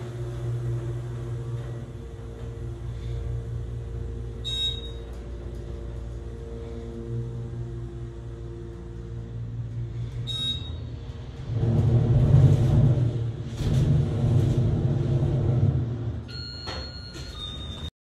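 Elevator car running between floors with a steady low hum. A short high beep sounds twice, the second as the floor indicator reaches 2. A louder low rumble follows for about four seconds, then a few quick electronic beeps near the end.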